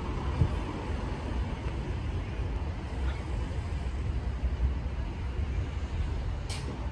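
Steady low outdoor rumble like road traffic, with a brief crackle near the end.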